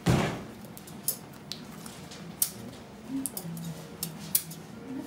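Hard candy being worked by hand on a work table: a heavy thump at the start, then a few sharp clicks and taps of the candy maker's tools.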